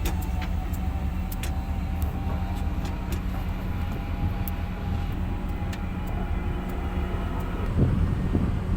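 Heavy diesel engine running steadily at low speed, a low even drone with a few faint clicks scattered through it.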